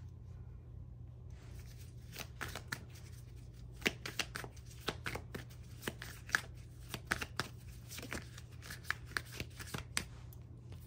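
A deck of divination cards being shuffled by hand: a long run of quick, irregular card snaps and flicks that starts about a second and a half in and stops near the end. A low steady hum runs underneath.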